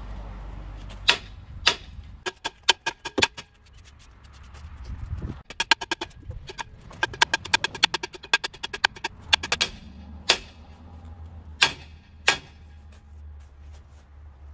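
Hammer blows on metal, knocking at a rust-seized part of the truck's wheel brake to free it: sharp ringing strikes, some single and some in quick runs of several a second.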